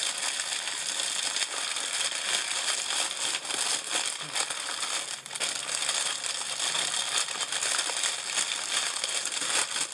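A clear plastic bag packed with small zip bags of diamond-painting drills being handled and squeezed, crinkling without a break.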